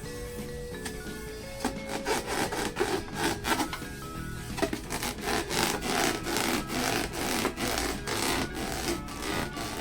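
Hands rubbing a rubber balloon in quick, even strokes, roughly three a second, starting about two seconds in, over background music.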